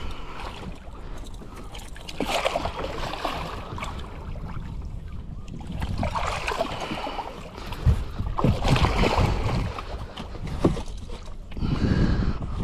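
Water splashing in irregular bursts beside a small boat as a large wels catfish moves at the surface and is gripped by hand, with a couple of sharp knocks near the middle.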